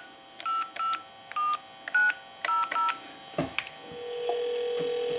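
Touch-tone (DTMF) beeps from a Trimline telephone's keypad as a number is dialed: about six short two-note beeps at an uneven pace. A knock follows about three and a half seconds in, then a steady low tone near the end as the dialed line rings back.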